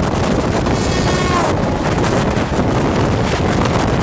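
Steady wind rush and train running noise at the open window of a moving train as an electric locomotive and a freight train of open wagons pass at speed on the next track. About a second in, a brief tone falls in pitch as the locomotive goes by.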